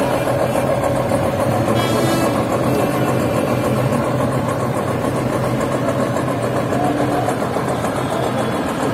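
An engine running steadily at idle, a constant hum that stays level throughout, with a brief high-pitched tone about two seconds in.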